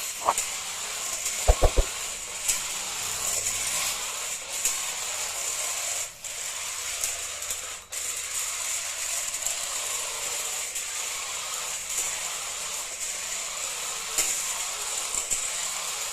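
Toy RC monster truck's small electric motor and plastic gearbox whirring as it drives, with a few knocks about a second and a half in and brief breaks in the whir a little past the middle.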